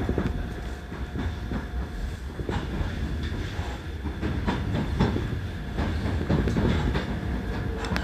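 Hankyu electric train running, heard from inside the car: a steady low rumble from the running gear, with irregular clicks and knocks of the wheels passing over rail joints.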